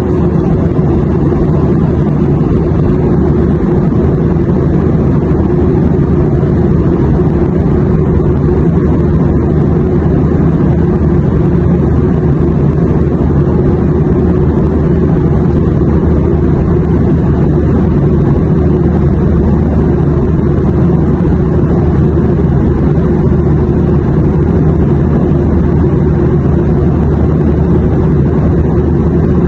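Airplane cabin noise used as white noise: a steady low rumble with a fainter hiss above it.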